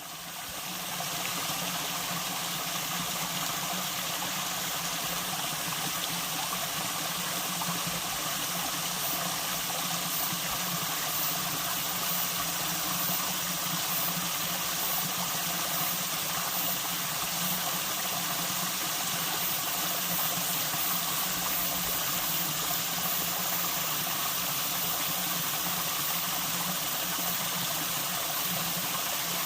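Mountain stream water rushing steadily over rocks, fading in over the first second.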